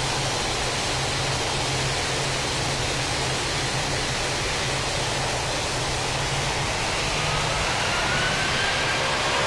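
Jet aircraft engines giving a steady, rushing roar, with a rising engine whine coming in about seven seconds in and growing louder toward the end.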